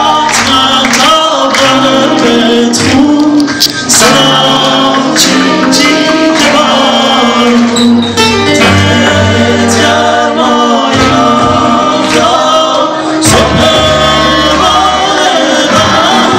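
Live band music, loud and steady, with regular percussion strikes under sustained melodic lines and no clear sung words.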